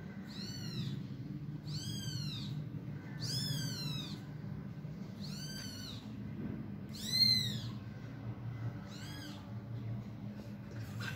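A very young kitten mewing six times, high-pitched calls that rise and fall, spaced about one and a half to two seconds apart, the one near the seventh second the loudest. A steady low hum sits underneath.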